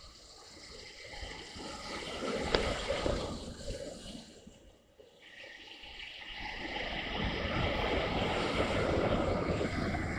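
Wind rushing on the microphone with road noise from a motorcycle ride, broken by a sharp knock about two and a half seconds in. It fades out briefly about halfway, then comes back louder.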